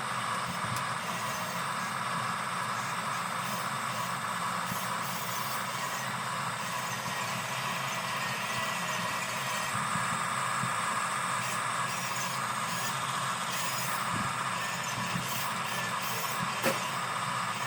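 Electric RC model construction machine running: a steady whir from its drive motors and gearing, with a single sharp click near the end.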